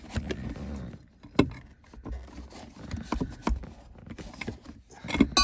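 Clicks, knocks and light rattles of a BMW E36 manual shifter's linkage being worked free by hand, with a sharp click about a second and a half in and a short metallic ping near the end as it comes loose.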